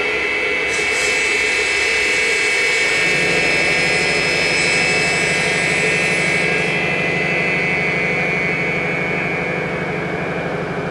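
Saw-blade cutting head of an AKM2060D CNC router spinning at speed with a steady high whine. A lower steady hum joins about three seconds in.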